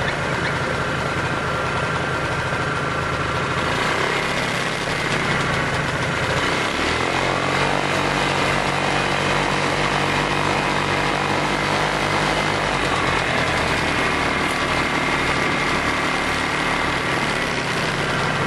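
An engine running steadily, its note changing about four seconds in and again about seven seconds in.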